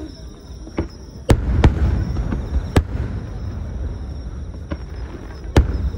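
Aerial firework shells bursting: a loud bang about a second in, two more within the next second and a half, and another near the end, with fainter pops between and a low rumble throughout.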